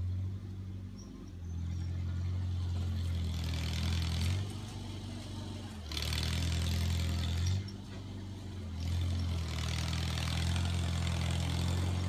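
1949 Farmall Cub's four-cylinder engine working under load while its front blade pushes manure, getting louder three times and easing off in between.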